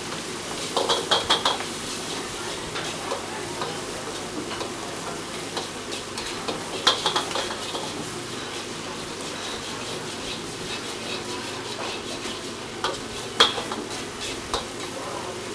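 Food sizzling steadily in a wok while a metal ladle stirs and scrapes through it. Sharp clusters of clanks from the ladle striking the wok come about a second in, around seven seconds, and again near the end.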